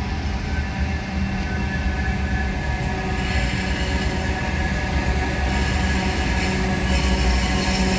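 Diesel locomotive at the head of a steel freight train, approaching with its engine running in a steady low hum that grows gradually louder. Wheel and rail noise builds from about halfway through.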